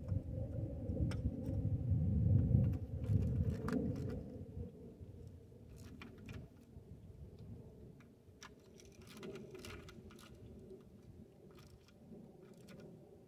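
Scattered metallic clicks and clinks of a wrench working at the track tensioner on a Bobcat 418 mini excavator's undercarriage. Beneath them is a low rumble, loudest in the first few seconds and then fading, and a faint steady hum.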